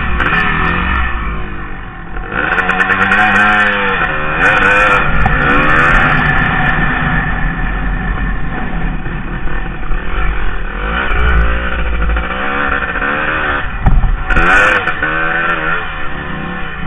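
Dirt bike engine revving up and down repeatedly, its pitch rising and falling as the bike accelerates, backs off and speeds up again on a dirt track.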